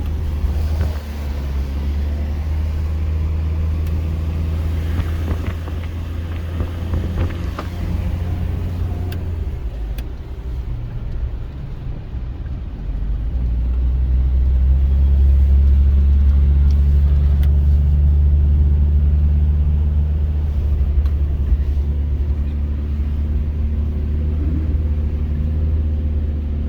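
Mitsubishi Pajero iO engine and road noise heard while driving: a steady low drone that grows louder about thirteen seconds in and stays there.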